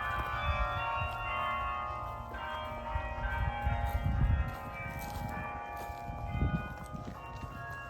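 Bok Tower's carillon playing, its bells struck one after another with the notes ringing on and overlapping. A low rumble comes and goes underneath.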